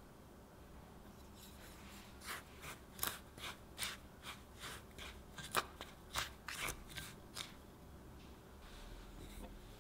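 Wooden spoon stirring dry sugar, cornstarch and cinnamon powder in a ceramic bowl: a run of short scrapes, about two or three a second, that stops near the end.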